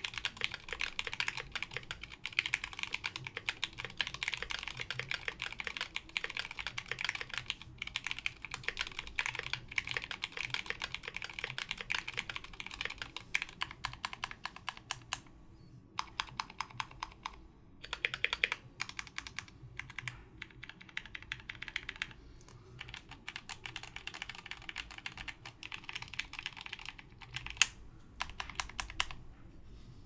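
Typing on a Think6.5 mechanical keyboard with a black polycarbonate case, Zealios v2 tactile switches with 67 g springs lubed with Tribosys 3204, and GMK keycaps. A rapid run of keystrokes gives way about halfway through to a brief pause and a few separate key presses, then fast typing resumes.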